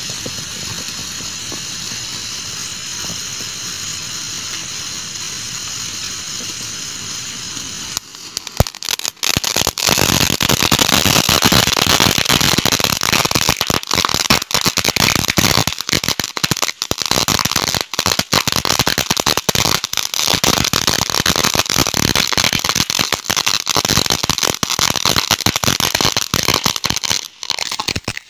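A sparkler fuse fizzing steadily. About eight seconds in, the homemade firecracker, packed with the powder of 100 chatar-patar (chit-put) crackers, catches with a sharp pop and erupts into a spark fountain that crackles densely with many sharp pops.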